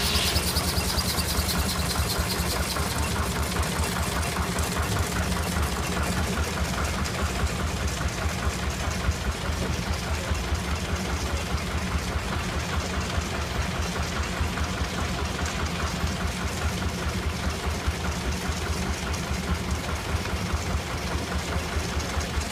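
Steam engine running steadily with a fast, even beat, powering a sawmill.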